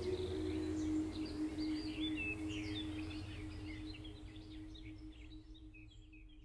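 Ambient background music fading out: a held drone with bird chirps over it, getting steadily quieter almost to silence.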